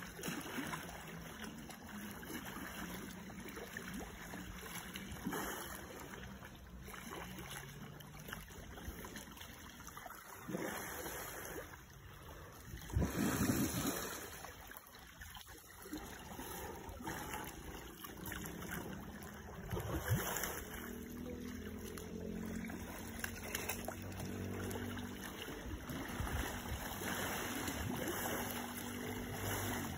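Asian elephants wallowing in a muddy pond, water sloshing and splashing as they roll and shift, with louder splashes about 13 seconds in and again around 20 seconds.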